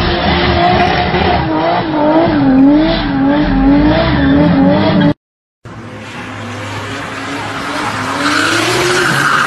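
A car engine revving hard and unevenly while its spinning tyres burn out in clouds of smoke. It cuts off suddenly about five seconds in, then another car's engine rises in pitch as it slides sideways through a corner, with tyre squeal near the end.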